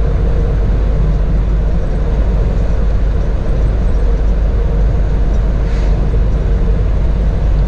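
Steady low engine and road noise inside the cab of a 2018 Freightliner Cascadia semi truck cruising at highway speed, with a faint steady hum running through it.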